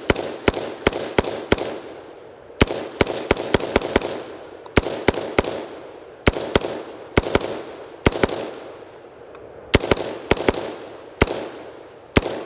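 BCM AR-15 firing 5.56 rounds semi-automatically in quick strings of two to six shots, a few shots a second, with short pauses between strings. Each shot is a sharp crack followed by a ringing echo.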